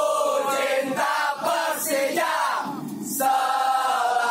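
A crowd of football supporters singing a terrace chant together in unison inside an airliner cabin, with long held notes; a new loud sung phrase starts about three seconds in.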